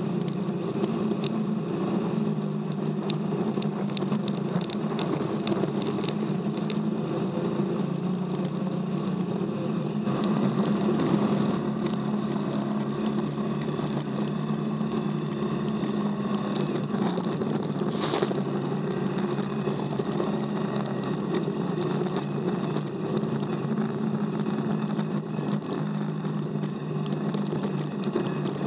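Off-road buggy engines running at a steady speed, with a sharp knock about eighteen seconds in.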